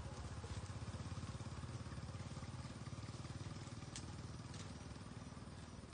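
A small engine running steadily with a low, rapid pulse, slowly fading, with a sharp click about four seconds in.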